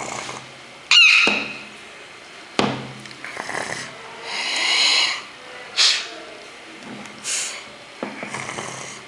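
A child's voice imitating velociraptor calls: a string of short, raspy screeches and hisses, one falling in pitch about a second in, with a longer breathy hiss in the middle.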